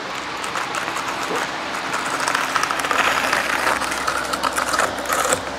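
Half-inch notched trowel scraping and combing thin-set mortar for large-format tile across the countertop board: a continuous gritty scraping made of many small rapid scratches.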